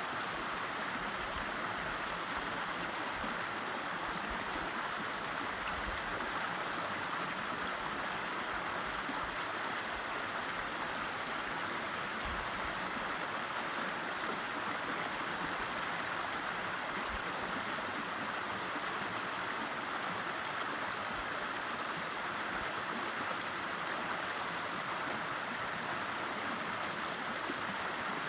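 A river rushing and babbling over stones, a steady, even flow of water.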